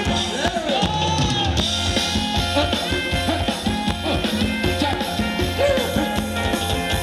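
Thai ramwong dance music from a live band: a drum kit keeps a steady dance beat under a singing voice with sliding melodic lines.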